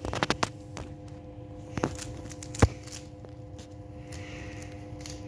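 Plastic clicks of a Rubik's cube being handled and turned: a quick cluster of clicks at the start, another click near two seconds in, and one sharp, loud click shortly after. A steady low hum runs underneath.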